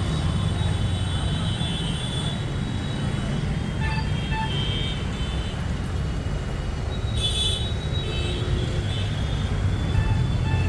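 Street traffic: a steady rumble of engines with several short horn toots from passing vehicles.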